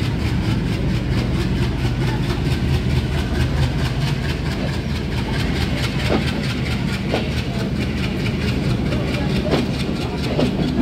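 Bangladesh Railway passenger coaches rolling slowly past along the platform as the train pulls out of the station, with a steady low engine drone running underneath.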